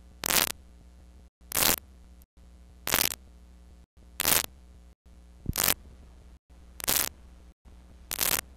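Static from a blank stretch of videotape: a steady low hum broken by short bursts of hiss about every 1.3 seconds, seven in all, with brief dropouts to silence between them.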